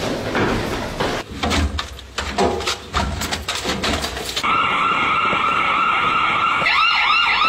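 Quick clatter of metal locker doors and rifles being pulled from racks, with hurried boot steps. About halfway through, a steady, loud siren tone comes in and turns into a fast, repeating wail near the end.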